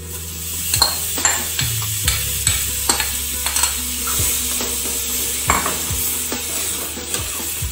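Cooked toor dal being stirred into frying onion-tomato masala in a kadai with a metal spatula: a steady sizzle, with the spatula scraping and clinking against the pan one to two times a second.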